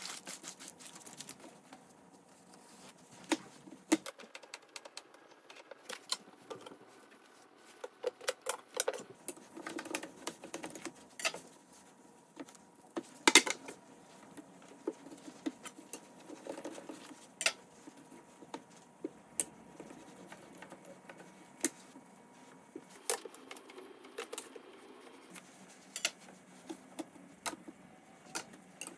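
Sped-up kitchen handling sounds: a paper liner rustling as it is peeled off a baked sponge cake, a knife cutting through the sponge, and many sharp taps and knocks as metal leveling bars and the cake are moved on a slatted bamboo board, the loudest knock about 13 seconds in.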